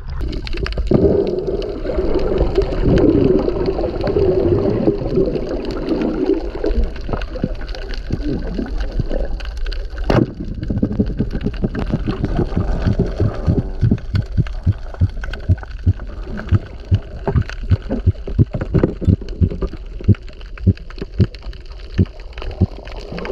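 Sea water heard through a camera at and under the surface: a muffled sloshing and gurgling, a single sharp click about ten seconds in, then a rapid run of low, dull thumps.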